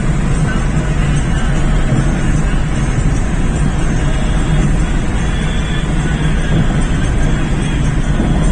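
Steady, loud rumbling noise of a vehicle in motion, unchanging throughout.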